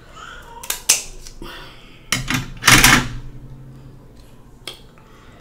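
Snow crab leg shell cracking and snapping as it is cut with kitchen shears and broken open by hand. A few sharp clicks come about a second in, then a louder crunch of shell between two and three seconds.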